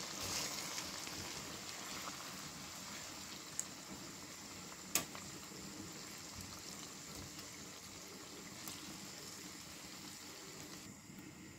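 Chicken in a creamy yogurt gravy simmering in oil in a karahi on low heat, a steady bubbling sizzle, as a spatula stirs. A sharp click from the spatula on the pan comes about five seconds in.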